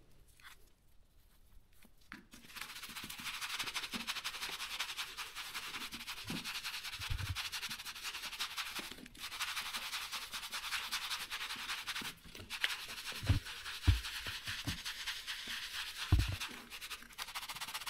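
Foam sponge rubbing oil into a leather boxing glove: a steady scratchy scuffing that starts about two seconds in, with a few soft knocks as the glove is handled.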